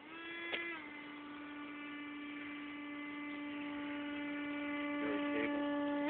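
Electric ducted fan of an HC Hobby Eurofighter RC jet whining at a steady pitch. The pitch drops a little about a second in, then holds while the sound grows gradually louder.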